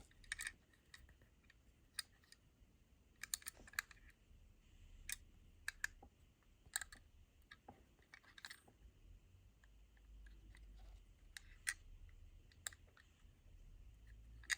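Faint, scattered small clicks and taps of a 1:64 scale die-cast model van and its plastic base being handled.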